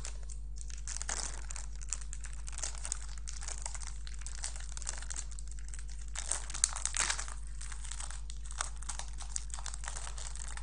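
Small snack bag crinkling and crackling irregularly as fingers pick and pull at it, trying to tear it open, with a louder cluster of crackles about two-thirds of the way through. A steady low hum runs underneath.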